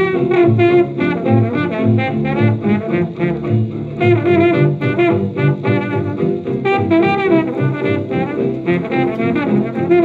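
1929 hot jazz dance band recording played from a 78 rpm record: brass and reeds playing together, with the narrow, top-cut sound of an old disc transfer.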